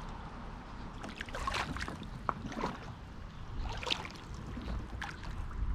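Pond water sloshing and gurgling close to the microphone, with many small, sharp splashes and drips over a low rumble.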